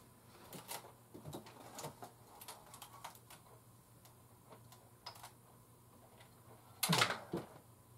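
Faint scattered clicks and ticks, with one louder short rustling noise about seven seconds in.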